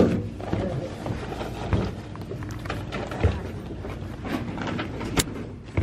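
A few sharp knocks and handling rustles, the loudest right at the start and a sharp click about five seconds in, over a noisy bed with faint background voices. The knocks fit shopping items being set down on a store checkout counter.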